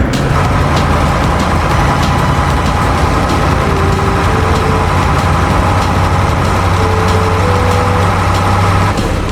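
Heavy diesel machinery running steadily: an even, deep engine hum with a mechanical whir above it. A few short higher tones come and go in the middle.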